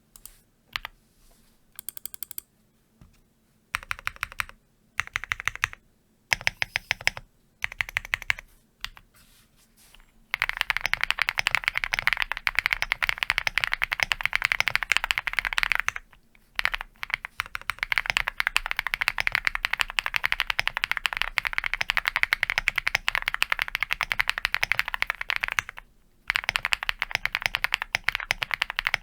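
Mirror75 R2 mechanical keyboard being typed on: short runs of keystrokes for about the first ten seconds, then fast, continuous typing broken by two brief pauses.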